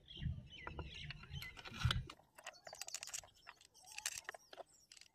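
Faint, irregular clicks and light metal taps of hand tools fitting and tightening the crankcase bolts on a Hero Splendor Plus engine being reassembled.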